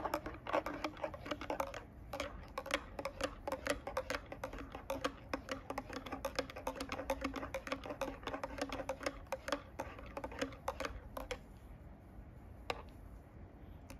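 A metal spoon stirring instant cappuccino in a glass mug, clinking rapidly and unevenly against the glass with a faint ring. The clinking stops about two and a half seconds before the end, with one last tap just after.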